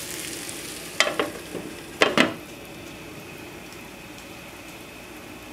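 Chicken and mushrooms sizzling in butter in a skillet over a low flame. A lid clatters twice, about one and two seconds in, as it is set on, after which the sizzling goes on more quietly under the lid.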